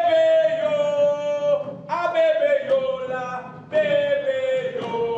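Voices singing three long held notes in a row, each one gliding slowly downward in pitch, with brief breaks between them.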